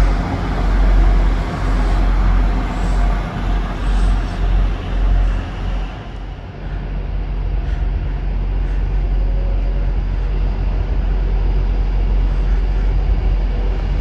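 A train at the station platform running, with a heavy low rumble that swells and dips unevenly for the first six seconds, then settles into a steadier drone.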